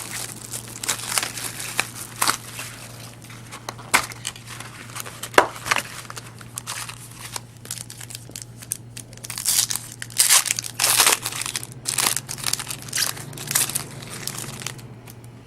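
Plastic trading-card pack wrappers crinkling and tearing as packs are ripped open and the cards handled, in irregular crackling rustles.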